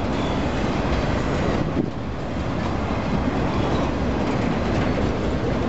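Freight train boxcars rolling past: a steady noise of steel wheels running on the rails.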